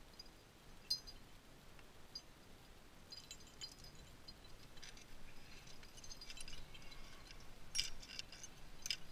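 Climbing gear clinking: carabiners and cams on a climber's harness knocking together in light metallic clicks, sparse at first and busier toward the end.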